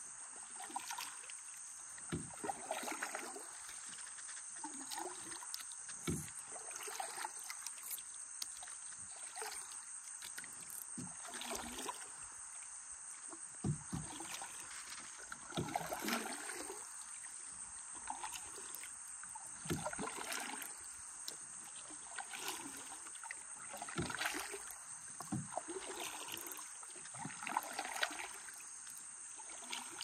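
Kayak paddles dipping and splashing in river water, one stroke every second or two, over a steady high drone of rainforest insects.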